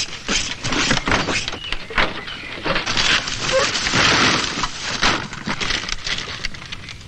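Ramshackle wooden hen house collapsing: a rapid run of knocks, cracks and splintering of wooden planks, building to a dense crash about three to four seconds in, then falling off to scattered knocks.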